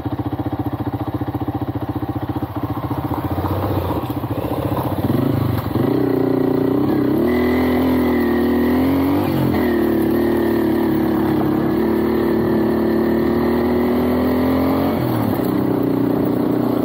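Small motorcycle engine running while being ridden. It picks up speed about five seconds in, holds a steady higher pitch, then eases off near the end.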